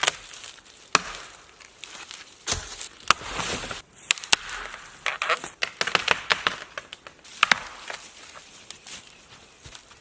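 Wood being chopped: irregular sharp knocks and cracks, about a dozen, with rustling and crackling of branches between them.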